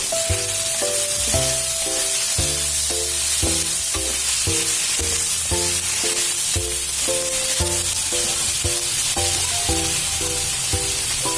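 Background music with a steady beat and repeated chords over the steady sizzle of oil frying in a pan.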